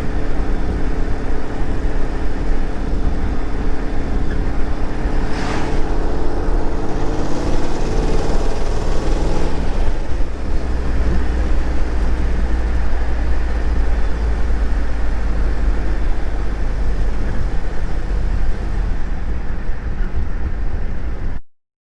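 Turbocharged Pontiac GTO's engine running, with a brief hiss about five seconds in and a rise in pitch around eight seconds in. A heavy low rumble follows until the sound cuts off just before the end.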